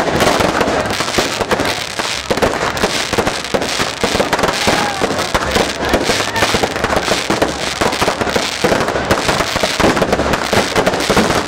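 Aerial fireworks bursting overhead in rapid, unbroken succession: a dense, loud stream of bangs and crackles.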